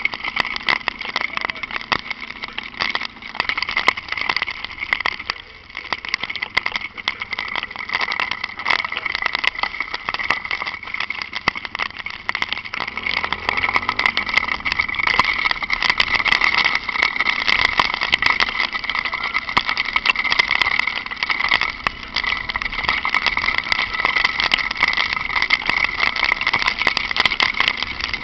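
A Honda NX4 Falcon 400 motorcycle ridden in light rain: a steady rush of wind and spray, with frequent sharp ticks that fit raindrops striking the camera. The engine is faint underneath.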